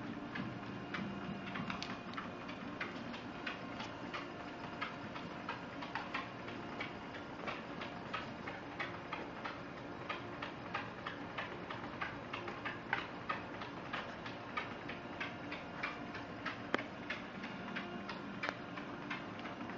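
A cocker spaniel's paws ticking quickly and irregularly on a moving treadmill belt, several light clicks a second, over the treadmill's faint steady motor hum.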